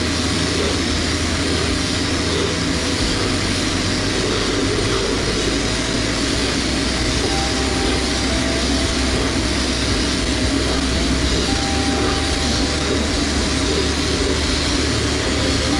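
Abrasive blast cabinet running: a steady, unbroken hiss of compressed air and grit blasting a small metal stove part, with a low steady hum underneath.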